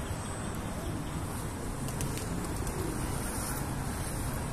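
A flock of feral pigeons cooing while they feed, over a steady low background rumble.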